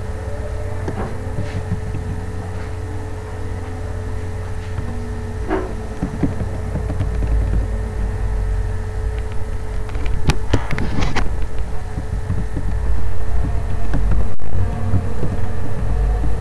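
Steady low rumble with a constant hum, broken by a few scattered clicks.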